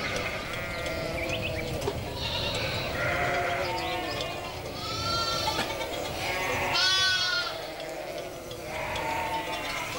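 A flock of sheep bleating, about five calls one after another and overlapping, the loudest about seven seconds in.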